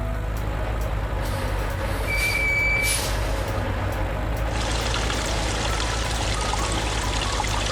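Cartoon vehicle sound effects: a steady low engine hum, with a short hiss and high squeal of brakes a little over two seconds in. From about four and a half seconds, a steady rush of spraying or pouring water.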